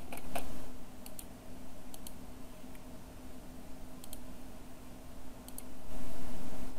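Scattered sharp clicks of a computer mouse and keyboard, several coming in quick pairs, over a steady low hum.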